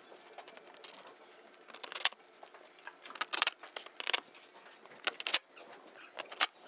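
Plastic engine undertray of a Mk5 VW GTI being refitted from below: light plastic clatter and about five short bursts from a cordless driver running its screws in.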